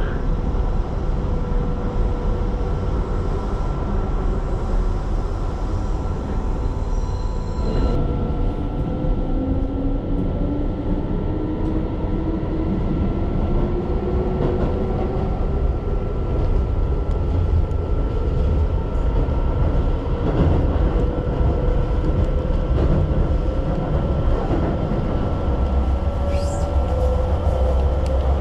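Running noise of a Keihan electric train: a steady low rumble of wheels on rail, with a thin steady whine, and a motor tone that rises slowly in pitch about a third of the way in.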